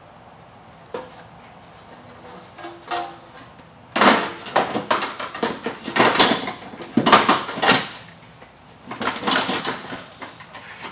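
Corrugated aluminum storm panels rattling and clattering as a panel is set into its tracks and pushed against the overlapping panel. A few faint handling clicks come first, then loud metal rattling in several spells from about four seconds in.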